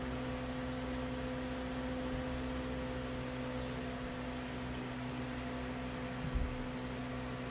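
Steady electrical hum with a pitched drone over an even background hiss, and a single brief low thump about six seconds in.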